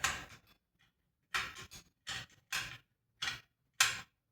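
A series of about seven short clattering and scraping sounds as chainsaw parts and tools are worked by hand during disassembly.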